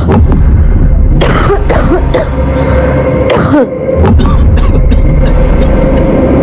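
A man coughing several times, short harsh bursts clustered in the first half, over dramatic background music with a heavy bass drone and a steady held tone.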